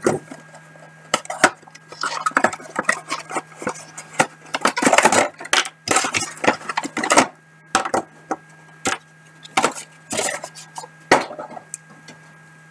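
Packaging of a pyraminx puzzle being opened by hand: tape peeled and a plastic box handled, giving irregular clicks, knocks and bursts of crinkling. A steady electrical hum from a poor computer microphone lies under it.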